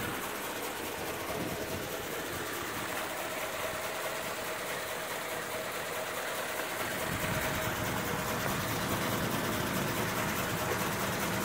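1935 Ford's flathead V8 idling steadily with a fast, even patter, growing a little louder and fuller about halfway through.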